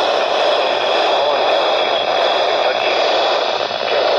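Weather radio receiver hissing with static, the sound of a weak, noisy broadcast signal, with a faint voice buried in the noise.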